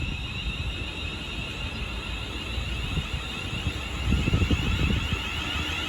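London Northwestern Railway electric multiple unit pulling out of the station: a steady high whine over a low rumble. Wind gusts on the microphone about four seconds in.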